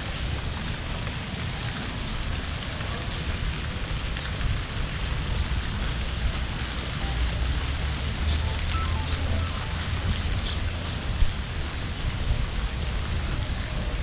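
Wind rumbling on the microphone over a steady hiss of open-air street ambience, with a few brief high chirps about halfway through.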